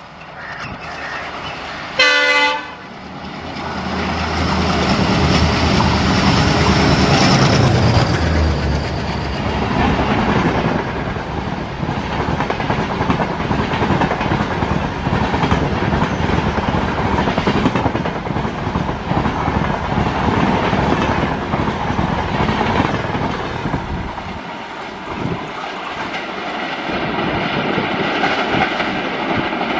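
WDM3A ALCO diesel locomotive sounding a short horn blast about two seconds in, then its engine passing loud at speed, followed by a long rake of passenger coaches rattling and clattering past over the rail joints. The rattle eases slightly near the end as the train draws away.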